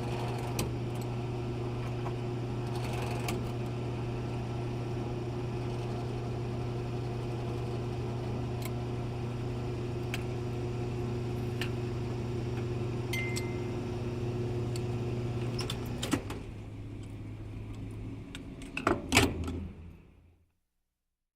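Gas station fuel pump running steadily with a low hum while fuel flows. About sixteen seconds in the hum stops with a sharp click, and a few metallic clanks follow near the end before the sound cuts off.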